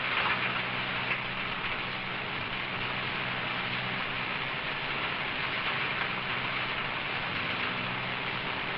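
Wheat grain pouring in a steady hissing stream from a combine's unloading spout into a truck bed, with a faint low hum underneath.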